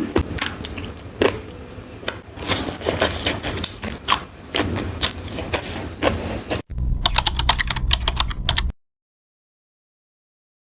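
Close-miked crunching of crisp food being bitten and chewed, many sharp crackly crunches in quick succession. About two-thirds in there is a cut to a faster run of crunches over a low hum, then dead silence for the last two seconds.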